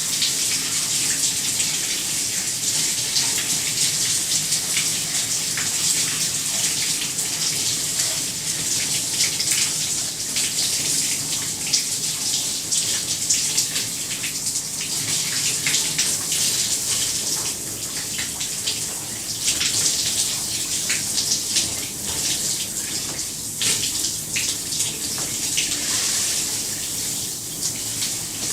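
Shower running: a steady spray of water hissing and splattering onto a hard surface, with small irregular splashes throughout.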